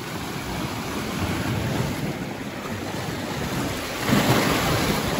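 Lake waves washing in and splashing against the large rocks at the foot of a pier, getting louder about four seconds in.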